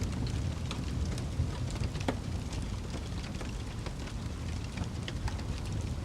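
Fire crackling: scattered sharp pops, the loudest about two seconds in, over a low steady rumble.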